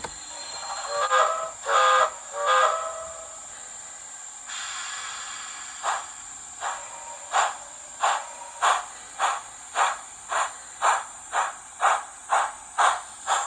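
Steam locomotive sound played by an ESU LokSound decoder in an On30 model locomotive through its small onboard speaker. The whistle sounds three short blasts, then steam hiss starts up and exhaust chuffs begin, quickening as the engine pulls away.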